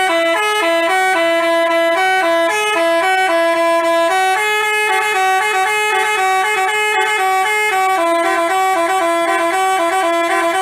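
Basuri telolet bus horn playing a tune: a continuous run of short, stepped horn notes in two voices, the pitch hopping between a few notes several times a second.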